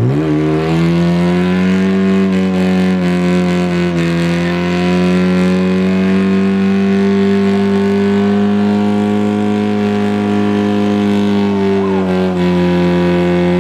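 Car engine doing a burnout: it revs up sharply, is held at high, nearly steady revs for about thirteen seconds, then drops back off near the end.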